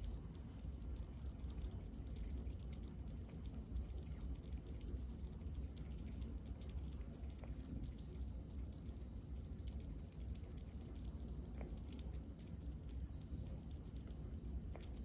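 Sugar glider nibbling and crunching seeds and dried corn from a dish: a quick, irregular string of tiny crisp clicks over a low steady rumble.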